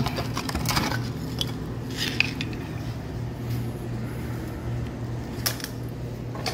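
A few sharp clinks and knocks from tools and broken wood pieces being handled, over a steady low hum.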